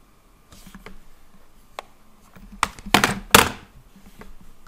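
A few sharp clicks and knocks from handling things at a desk: faint single clicks in the first two seconds, then a cluster about three seconds in, the loudest two knocks close together.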